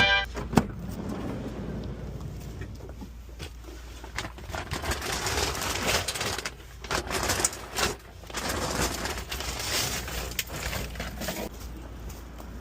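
Items clattering, scraping and rustling as someone rummages through tools and supplies in the back of a cluttered work van, with irregular knocks over a steady low rumble.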